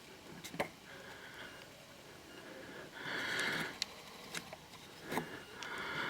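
A person sniffing once, a short breathy intake a little past halfway, with a few small clicks of handling around it.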